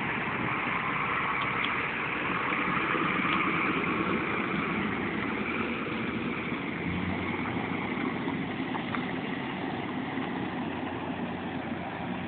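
Pickup truck engine running at low speed as the truck drives slowly away over a dirt track, gradually growing fainter.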